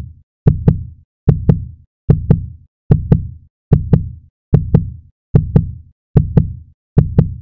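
Heartbeat sound effect: a steady lub-dub double thump, each pair deep and sharp-edged, repeating a little faster than once a second, about nine beats in all.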